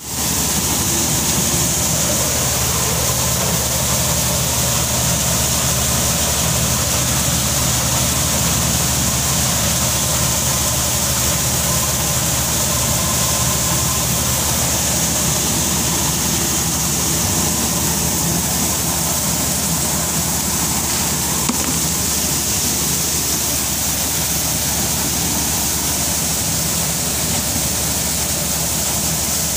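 Vishwakala thresher running steadily while threshing grain, a loud continuous mechanical drone with a low hum under a strong hiss, as the threshed grain streams out of its outlet chute.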